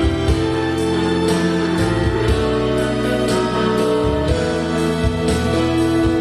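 Saxophone playing a slow, held melody over a backing track with a steady beat of about two strokes a second.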